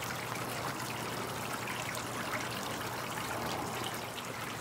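Steady trickle of running water in a backyard fish pond.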